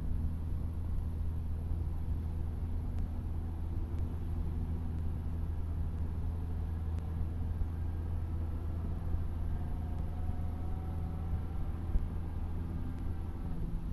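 Cessna 152's four-cylinder Lycoming O-235 engine and propeller droning steadily, a constant low hum with no change in power. A brief click comes near the end.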